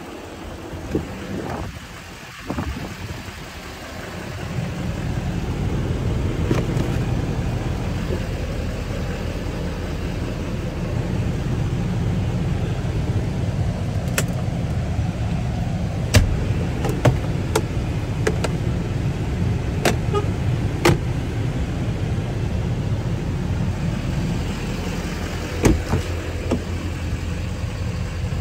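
Pickup truck's engine idling, its steady low hum coming up about four seconds in as the cab is opened, with scattered sharp clicks and knocks of interior trim, such as the centre console lid, being handled.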